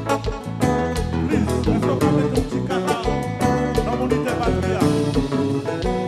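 Kompa band playing live, with electric guitar, bass and keyboards over a steady drum beat.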